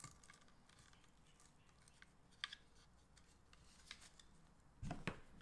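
Faint small clicks and rustles of stripped wire conductors being worked into the terminals of a plastic 30-amp shore power inlet by hand, with a sharper click about halfway and two louder knocks near the end.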